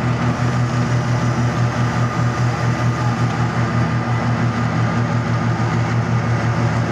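Engine of a construction machine running steadily, with a low, even hum and a regular pulsing throb.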